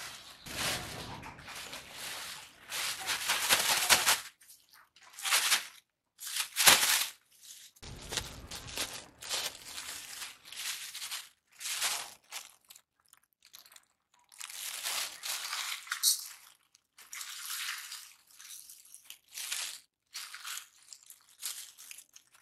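A thin plastic bag of red lentils crinkling and rustling in irregular bursts as it is handled and opened, with the dry lentils pouring into a steel bowl near the end.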